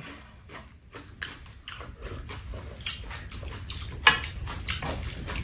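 Two people eating chicken fried rice: wet chewing and mouth sounds, with several sharp clicks of metal spoons and chopsticks against bowls and the tray.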